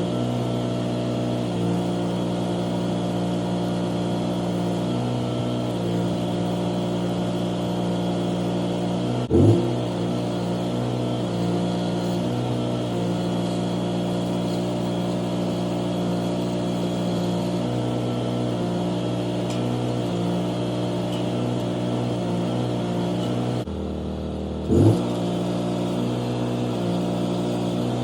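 Bobcat skid steer's diesel engine running steadily. It gives two brief sharp rises in pitch, about nine seconds in and again near the end, the second after a short dip.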